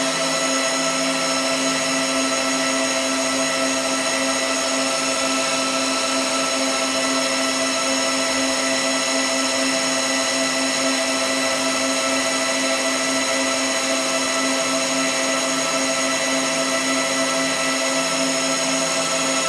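A machine running steadily, giving a constant hum with several fixed whining tones over a hiss, unchanging throughout.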